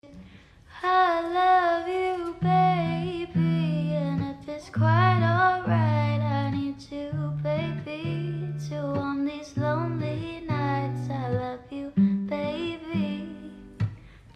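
Background music: a singer's melody over plucked strings and a steady bass line.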